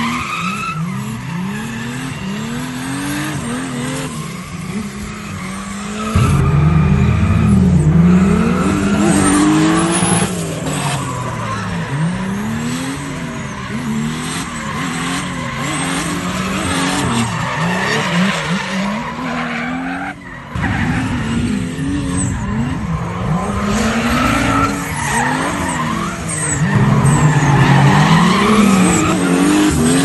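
Turbocharged Chevrolet Chevette drift car sliding, its engine revving up and down over and over with tyres squealing. Partway through, a BMW E36 runs in tandem alongside it.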